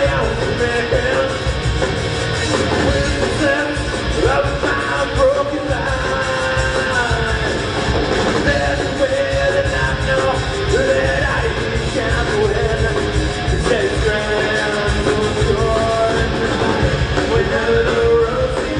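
Live rock band playing: distorted electric guitars, bass and drums, with a lead vocal over them.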